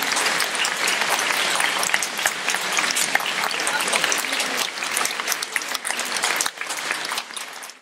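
Audience applauding, a dense, even clapping that fades out near the end.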